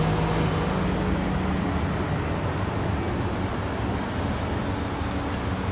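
Kawasaki H2 motorcycle with an aftermarket Arrow exhaust, running steadily at low revs with a deep, even exhaust note and no revving.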